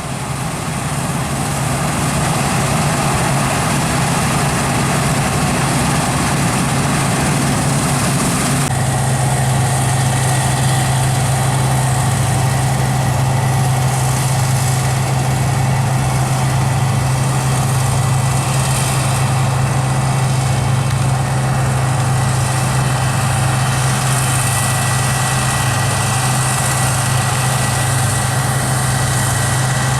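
Heavy diesel engine of harvest machinery running steadily. The sound changes suddenly about nine seconds in, after which a strong, steady low hum holds.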